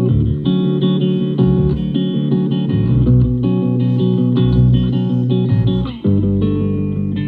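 Guitar-led music with a bass line played through a Bang & Olufsen Beosound Level wireless speaker, with a brief drop in level about six seconds in.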